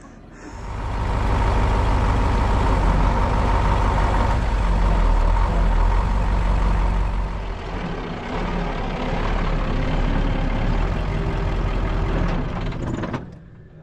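Crane truck's engine running hard under load while its crane lifts a heavy piece of scrap, a deep engine note with a steady whine over it. It eases briefly about eight seconds in and cuts off suddenly near the end.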